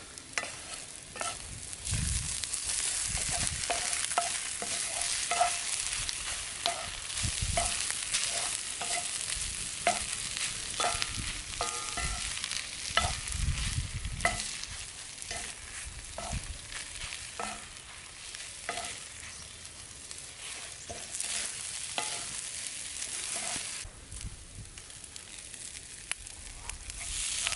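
Scrambled eggs and hashbrowns sizzling in a cast-iron skillet over a campfire, with a wooden spatula scraping and tapping the pan as the food is stirred. The sizzle drops back about 24 seconds in.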